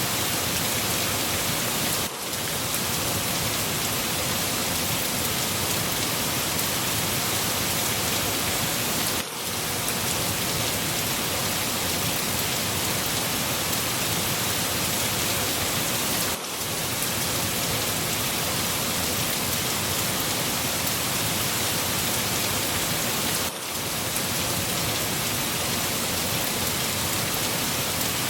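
Steady, even rain on a surface, with a brief dip in level about every seven seconds.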